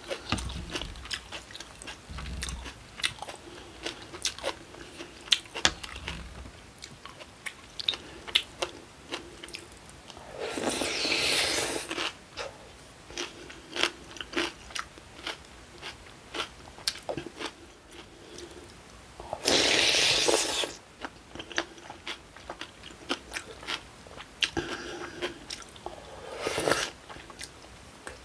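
Close-miked chewing and crunching of a cold acorn jelly rice soup with kimchi and vegetables: many short crisp crunches. About ten and twenty seconds in come two longer, louder slurps of broth, and a shorter one near the end.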